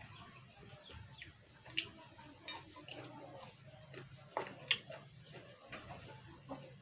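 A person chewing and smacking the lips while eating, with a string of short mouth clicks, the loudest two close together just after the middle.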